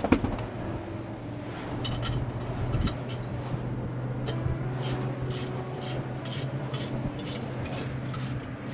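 Wrench at work on the bell-mount bolts: metal clinks, then a run of quick, evenly spaced clicks, about three a second, in the second half, over a steady low hum.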